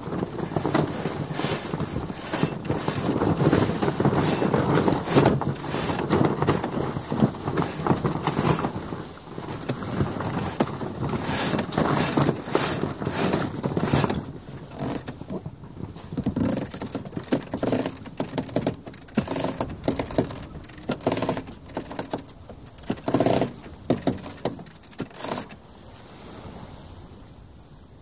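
Sails of a 30 ft GRP sloop (Halmatic 30) flapping as the yacht goes about, with a sheet winch ratcheting as the sail is winched in on the new tack. The dense flapping clatter thins out about halfway through into more separate, sharp ratchet clicks and knocks.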